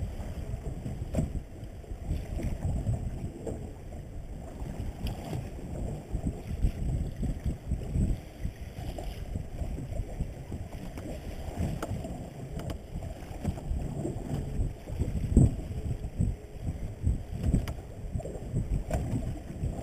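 Muffled, uneven rumble of wind and sea water slapping against a small boat's hull, with scattered faint knocks.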